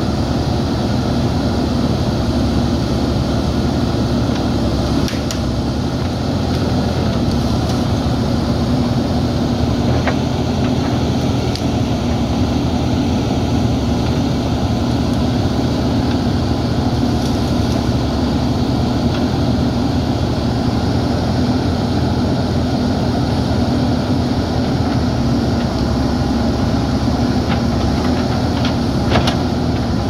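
JCB 3DX backhoe loader's diesel engine running steadily while the backhoe arm digs and swings, with a few brief knocks, the sharpest one near the end.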